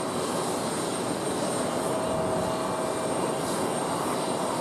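Boeing 767 freighter's jet engines running steadily as the plane rolls along the ground, a constant rushing noise with a steady high whine and a lower hum.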